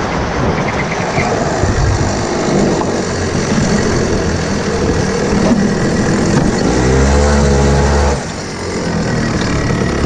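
Daytona DMAX kart engine heard from the driver's seat, off the throttle as the kart slows to walking pace, mixed with wind and tyre noise. Late on the engine holds a steady note for about a second and a half, drops away briefly, and near the end picks up again with a rising note.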